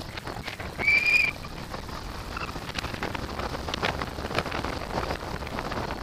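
Wind rushing and buffeting over a camera microphone on a hang glider in flight. About a second in, a short high beep sounds once, slightly rising, with a fainter brief beep a little later.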